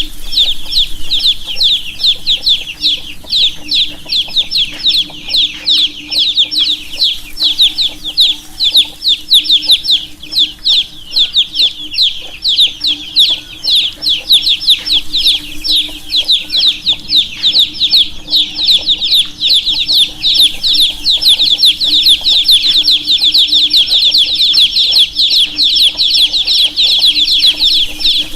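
A brood of baby chicks peeping continuously: many short, high-pitched chirps overlapping, several a second, over a faint steady low hum.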